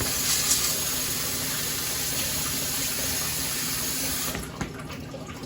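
Kitchen sink tap running steadily as elbow macaroni is rinsed under it. The flow shuts off about four seconds in.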